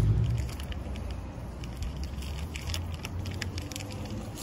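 Light, scattered ticks and small rustles from gloved hands handling the water pump parts and gasket on the gearbox housing, over a low steady hum.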